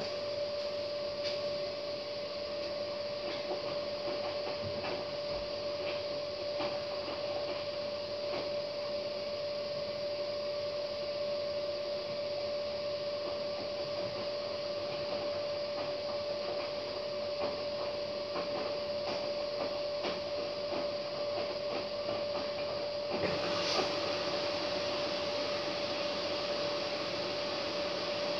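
Hotpoint front-loading washing machine in its wash cycle, the drum turning the wet laundry over, with a steady motor hum and light knocking of the load. Near the end the sound grows fuller and a little louder.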